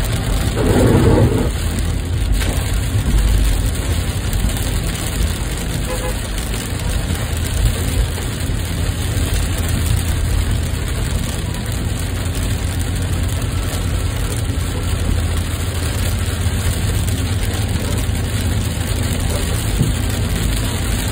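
Steady drone of a car driving on a wet highway, heard from inside the cabin: a low engine and road noise under a constant hiss. About a second in there is a brief, louder sound.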